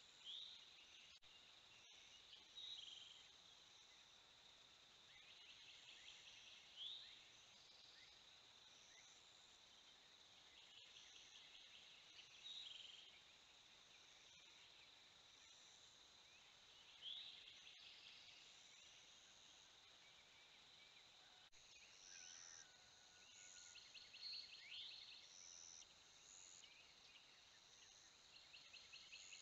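Faint outdoor ambience: a steady high insect drone with birds calling, one repeating a short rising chirp every few seconds and others giving scattered high notes.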